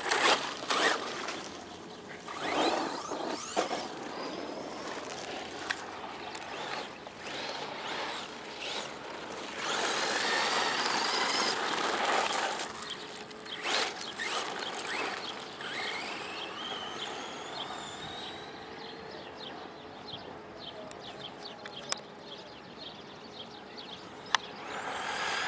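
Brushless electric RC monster truck (41,000 RPM brushless motor) driving on dirt and gravel: a high motor whine glides up and down in pitch with the throttle, along with gravel noise and a few sharp knocks.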